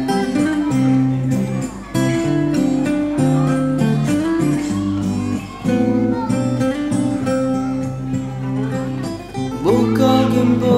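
Instrumental break of a pop song with guitar over held chords; a male singing voice comes back in near the end.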